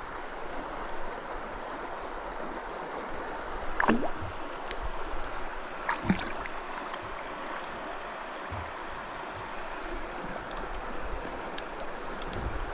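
Flowing river water, a steady rushing and lapping, with two brief louder sounds about four and six seconds in.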